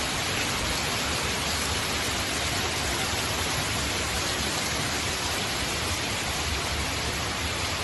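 Steady heavy rain, an even hiss of falling water.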